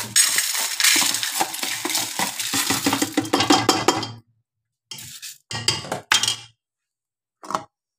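Washed whole moong and split chana lentils, wet with rinse water, poured from a plastic tub into a metal pressure cooker, the grains pattering and rattling on the pot's base for about four seconds. Then a few short scrapes and clinks of a steel ladle against the inside of the cooker, the last near the end.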